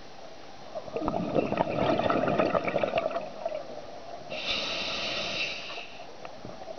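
Scuba diver breathing through a regulator underwater: a crackling rush of exhaled bubbles lasting about two seconds, then the hiss of the regulator on an inhaled breath about four seconds in.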